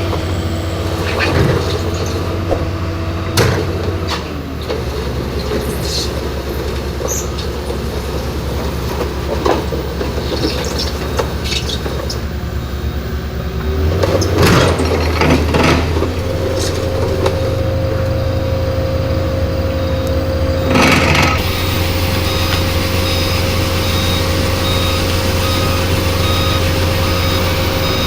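Heavy diesel vehicles running steadily, with scattered knocks and clicks and a short hiss about two-thirds of the way through. A repeating beep starts shortly after that and runs to the end.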